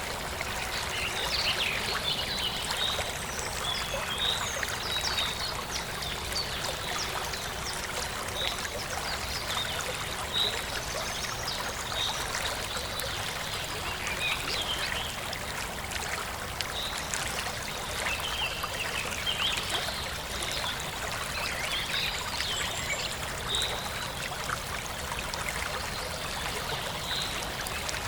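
Forest stream flowing steadily, with birds chirping in short, scattered calls throughout.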